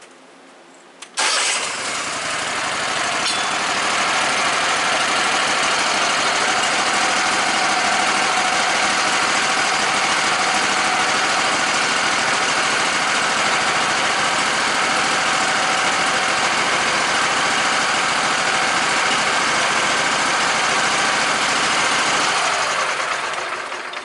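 Portable band sawmill's engine started after a click about a second in, running steadily for about twenty seconds, then shut off and winding down near the end.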